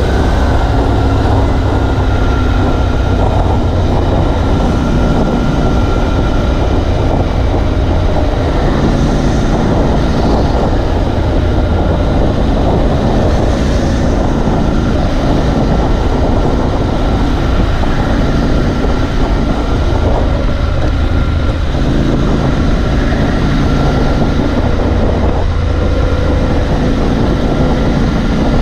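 Triumph Scrambler 1200XE's 1200 cc parallel-twin engine running steadily on the move, its note shifting a little in pitch now and then, under a constant rush of road and wind noise.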